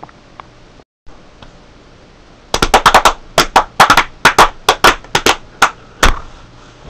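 A quick, uneven run of about fifteen sharp, loud impacts, roughly four a second, stopping about a second before the end.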